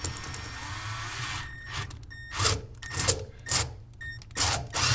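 Power drill with a 5/16-inch bit boring a hole in the cooler cabinet: one longer run of about a second and a half, then several short trigger bursts.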